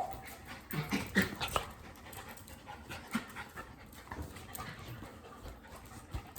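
Pet dog panting, with a cluster of short, sharp sounds about a second in.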